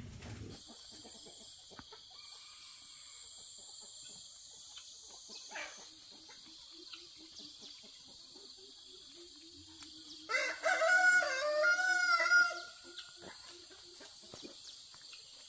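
A rooster crows once, about two seconds long, starting about ten seconds in, over a steady high-pitched buzz of insects.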